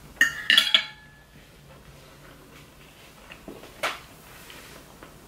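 Metal fork clinking and scraping against a ceramic plate: a quick run of ringing clinks just after the start, then one more clink about four seconds in.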